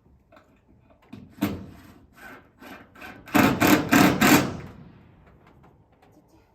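Knocking and banging from building work on a timber-framed shed: a few spaced knocks, then a quick run of about five louder strikes a little past the middle.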